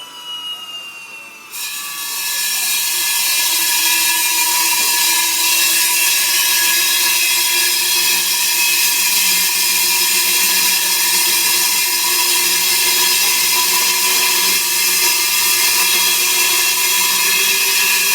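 Pentruder MDU NTGRA core drill spinning a 152 mm diamond core bit: a steady motor whine, then about a second and a half in the bit bites into the concrete and a loud, steady grinding hiss of cutting takes over, with the motor tone held underneath.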